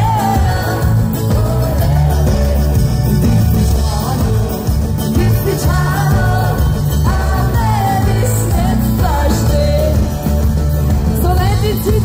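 Live schlager-pop band playing through a PA: a female lead vocalist sings over amplified band backing with a heavy bass and drum beat.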